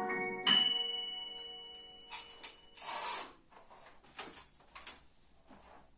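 Piano's closing note struck about half a second in and left to ring, dying away over about two seconds, followed by a few soft clicks and rustles.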